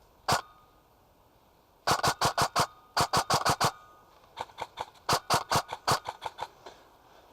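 Airsoft guns firing: a single shot, then quick strings of sharp cracks at roughly seven a second, some loud and close, others fainter and farther off.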